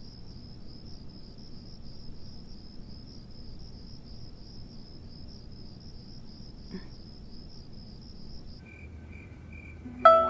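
Crickets chirping in a steady, evenly pulsed high trill that stops about eight and a half seconds in, giving way to a lower insect trill. Near the end a guqin string is plucked, one loud ringing note.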